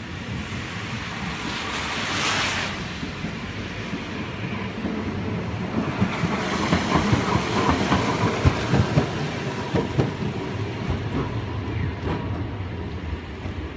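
A Hakodate streetcar running along the rain-wet track past the stop and away, its wheels rattling and knocking on the rails, loudest from about six to ten seconds in before it fades. About two seconds in, a car's tyres hiss by on the wet road.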